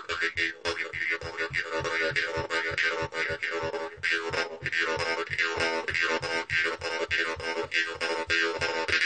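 Jew's harp played in a rapid, steady rhythm: a twanging drone held on one pitch, with the melody made by overtones that rise and fall as the mouth shape changes.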